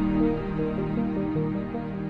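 Instrumental background music: a melody of short, quick notes over sustained low notes.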